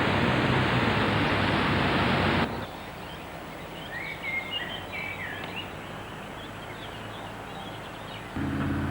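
Loud steady rushing noise with a low hum that cuts off abruptly about two and a half seconds in. It gives way to quieter outdoor ambience with a few faint high chirps. Near the end a steady hum starts suddenly.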